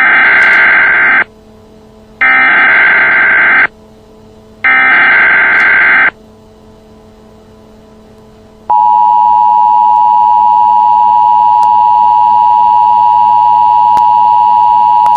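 Emergency Alert System broadcast tones: three loud bursts of warbling digital data (the SAME header code), about a second apart, then the steady two-tone attention signal begins about nine seconds in and holds.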